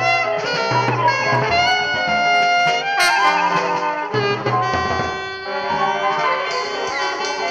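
Improvised free-jazz music: several instrument lines weave and slide over one another in a dense, shifting tangle, with low bass notes coming and going.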